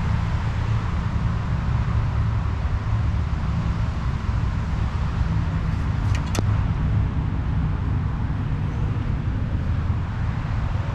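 Steady low rumble of distant road traffic, with a couple of short clicks about six seconds in.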